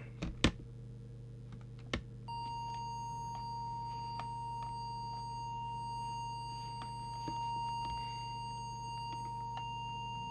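A few handling clicks, then about two seconds in a steady test tone of about 1 kHz switches on and holds: a small audio oscillator feeding the CB transmitter for a deviation check.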